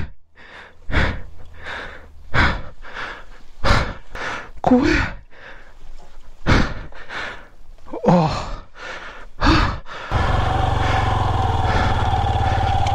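A person breathing hard in loud gasps and sighs, about one every second and a half, with a few voiced grunts, beside a dropped motorcycle. About ten seconds in, a motorcycle engine starts running steadily.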